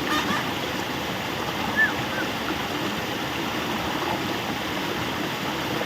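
Two short chirps from a bird, about two seconds in, over a steady hiss-like background noise.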